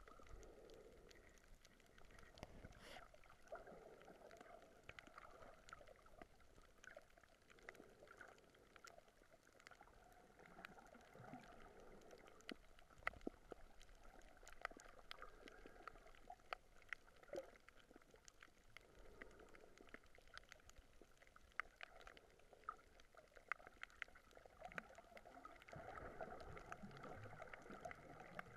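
Faint, muffled underwater sound heard through an action camera's waterproof housing: a low wash of moving water swelling every few seconds, with scattered sharp clicks and crackles throughout.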